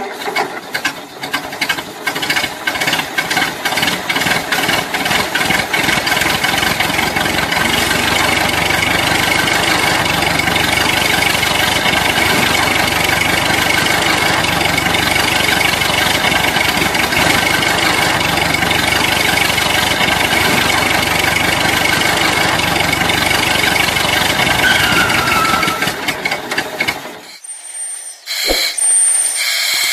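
Tractor engine running steadily, with a fast even knock at first. It stops about three seconds before the end, followed by a few short high electronic tones.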